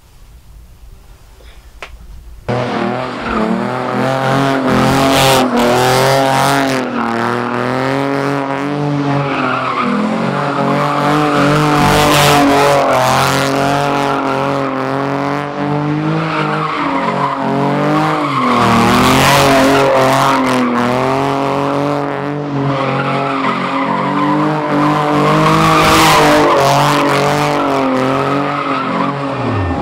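Car drifting in circles: the engine is held at high revs, its pitch rising and falling, while the tires squeal in surges that swell about every seven seconds. It starts abruptly about two and a half seconds in, after a quiet start.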